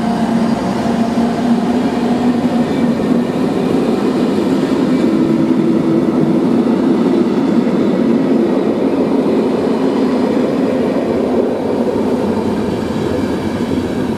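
TRAXX electric locomotive hauling a passenger train through the station, a loud steady rumble with a humming tone that steps up in pitch about five seconds in.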